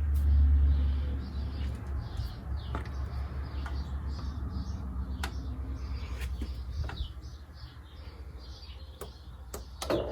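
Miele Meteor 1000 Novotronic washing machine running: a low hum from the machine, loudest in the first second and then pulsing more weakly, with scattered sharp clicks. Short high chirps repeat throughout.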